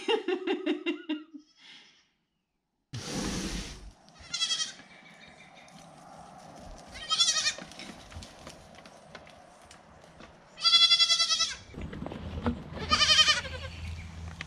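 Young goat kids bleating, four wavering, high-pitched bleats spaced a few seconds apart, with a short rush of noise about three seconds in.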